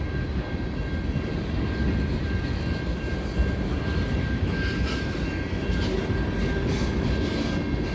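Freight train of tank cars rolling past at a level crossing: a steady rumble of steel wheels on rail, with a thin steady high tone over it and a few light clicks in the second half.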